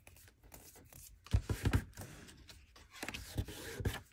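Paper craft pieces handled on a tabletop: soft rustling with a few dull thumps, a cluster of them a little past a second in and two more near the end.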